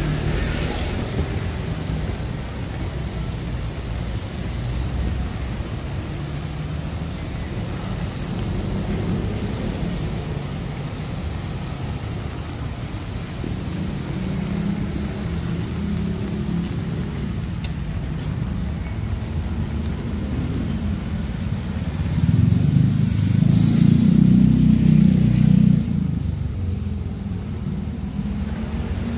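Street traffic rumbling steadily. Near the end a car engine grows louder for about four seconds, then drops away suddenly.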